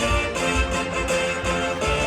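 Show soundtrack music: layered strings and guitar over a steady beat.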